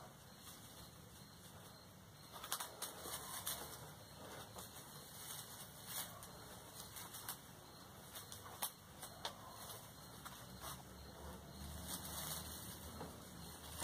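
Hands wiring boxwood bonsai branches: irregular small clicks and taps of wire and tools with soft rustling of the small-leaved foliage.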